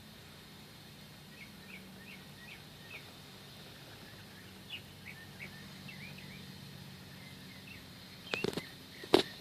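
Faint bird chirps, short high notes repeated every half second or so, over a low steady hum, with a few sharp knocks near the end.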